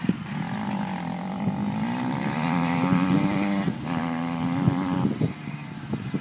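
Dirt bike engine revving as it accelerates around the motocross track, its pitch climbing, with a brief drop near the middle before it climbs again, then fading away after about five seconds.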